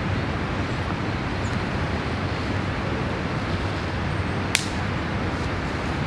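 Steady low outdoor background noise, with one sharp snap about four and a half seconds in as dry fallen cedar needles and twigs are gathered by hand.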